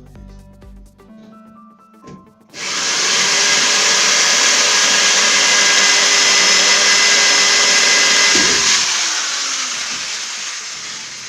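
Handheld electric power tool starts suddenly about two and a half seconds in and runs steadily at full speed. It is released a little after eight seconds in, and its pitch falls as the motor slowly spins down.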